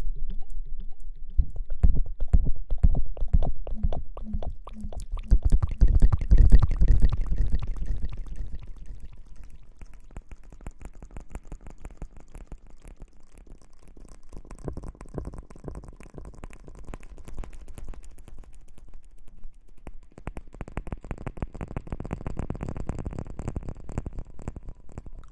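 Close-miked ASMR rustling and squishing: a dense run of quick crackles and soft wet-sounding rubs, heavier for the first eight seconds or so and then softer and lighter.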